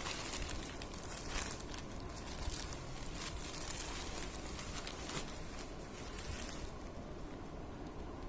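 Packaging rustling and crackling as it is handled during an unboxing, in a run of short bursts that settles down near the end.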